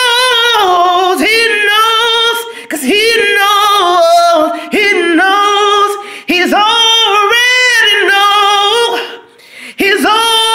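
A man singing a cappella gospel in a high voice, holding long notes that bend and waver, in several phrases with short breaks between.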